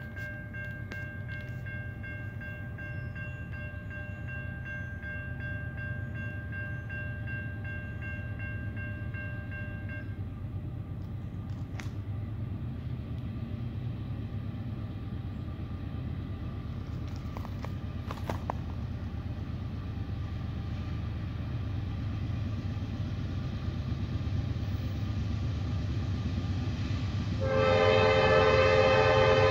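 Train rumbling steadily, with a thin steady high tone over it for the first ten seconds or so. About 27 seconds in, a locomotive air horn sounds a loud chord blast that runs on to the end.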